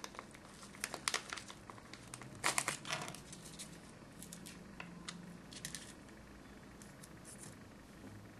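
Small plastic wrapping crinkling and crackling between the fingers as it is peeled off a small truck, in short irregular spells about one, two and a half and six seconds in, with lighter crackles near the end.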